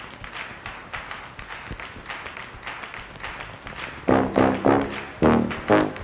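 Background music: a light ticking beat, joined about four seconds in by loud, short brass notes repeating about three times a second.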